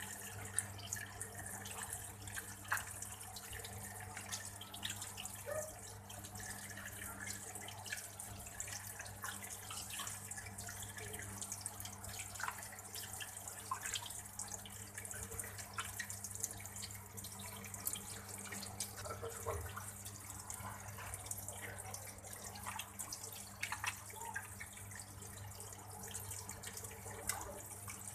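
Water running from a tap into a sink while boiled eels are rinsed and cleaned, with scattered small splashes, drips and clicks from the handling. A steady low hum runs underneath.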